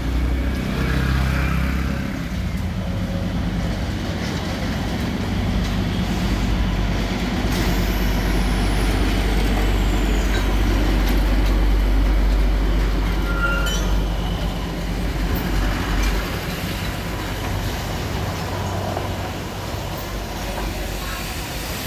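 Low, steady engine rumble of a narrow-gauge 'toy train' running, easing off about 16 seconds in.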